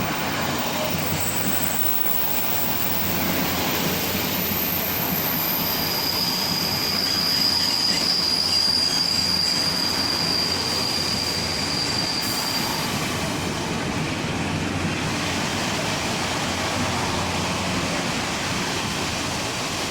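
Passenger train running along the platform track, with a steady rumble of wheels on rail and a thin, high wheel or brake squeal held from about five seconds in until about thirteen seconds in.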